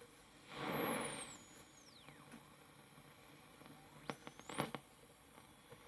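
Sony Earth Orbiter portable radio being tuned between stations: tuning whistles glide down in pitch, with a short burst of static about half a second in. Around four seconds in come a few sharp clicks and a brief rising whistle.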